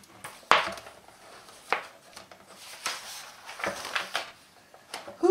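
Pages of a large picture book being turned by hand: a few short paper flaps and rustles, the sharpest about half a second in.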